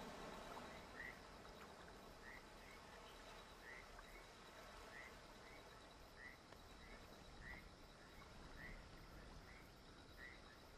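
Faint night-time ambience: short chirps of night creatures, such as crickets or frogs, repeating about twice a second over a low hiss, with a thin steady high trill behind them.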